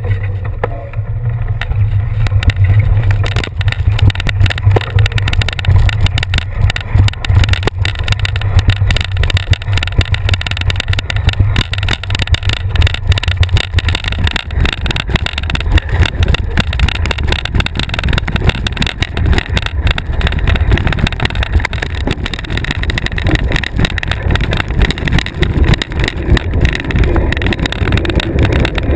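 A bike-mounted camera's microphone on a bicycle ride over a bumpy sand trail: a loud, steady low rumble of wind buffeting and tyre noise, with constant rattling and knocking from the bumps.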